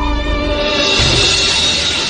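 Dramatic background music with held notes; about half a second in, a brighter, noisier layer swells in.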